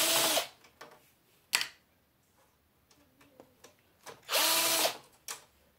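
Cordless drill backing screws out of a TV's plastic housing in two short bursts of motor whine about four seconds apart. A sharp click comes between them, about a second and a half in.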